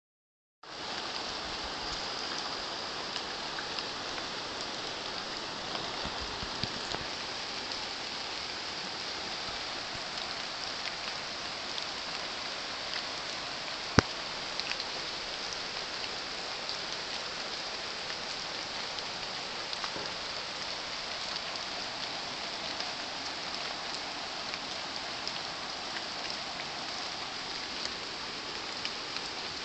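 Steady rain falling on floodwater and wet foliage: an even hiss dotted with small drop taps, and one sharp tap about halfway through.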